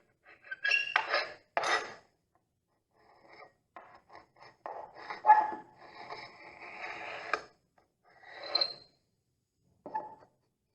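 Powdery old filler being scraped off the edge of an MDF window board: short, irregular scrapes and clicks with pauses between them.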